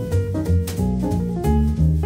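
Jazz music: a walking bass line with a new note about every quarter second, over a drum kit with cymbals.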